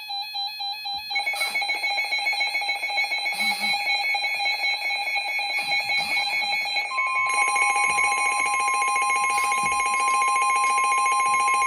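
Emergency Alert System alert tones: a rapidly pulsing electronic alarm, joined about seven seconds in by a single long steady tone, the weather-radio warning alarm tone that comes before a warning message.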